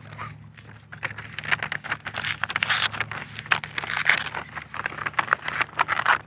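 Taped pink paper wrapping being torn open and crumpled off a skateboard deck: a dense, irregular run of paper crinkling and tearing that starts about a second in.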